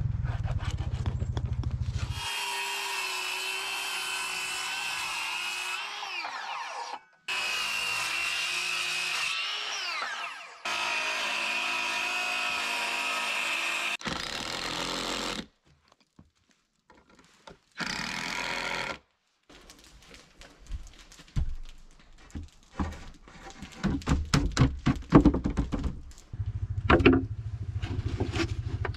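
Cordless drill running in several bursts as it drives into cedar framing, each burst a steady whine that sinks in pitch as the trigger is let go. Then a string of light knocks and scrapes from handling and marking the wood.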